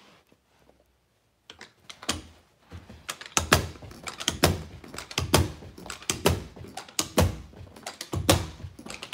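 Carpet knee kicker struck repeatedly with the knee, a thud about once a second starting about two seconds in. Each kick hooks the carpet backing onto the tack strip along the wall to stretch it tight.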